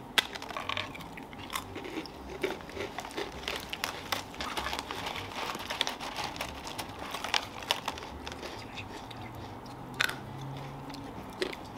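Crunching and chewing of crisp cracker-like cookies, close-miked in mukbang ASMR style, with sharp crunchy bites throughout. There is a loud bite just after the start and more near the end.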